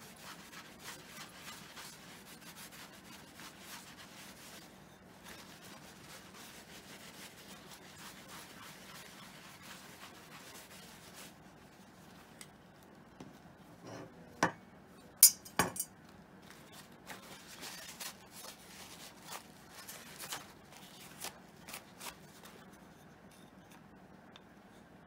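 Tissue rubbing over a round mirror glass to polish it clean: a dense scratchy rubbing for about the first eleven seconds. Then the rubbing stops and a few sharp clicks and clinks follow, the loudest about halfway through.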